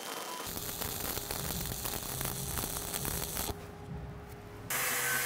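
Stick-welding arc burning a 7018 electrode: a crackling hiss with irregular pops for about three seconds. Then it breaks off into a quieter stretch, and near the end a steadier hiss with a faint hum takes over.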